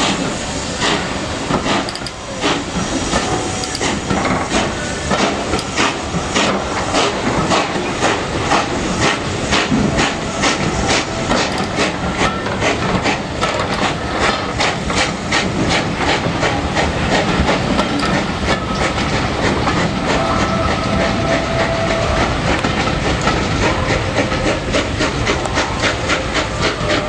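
A steam-hauled passenger train pulls out past the listener with its steam locomotive working. Regular beats come closer together as it gathers speed, over a steady hiss and the rumble of the carriages.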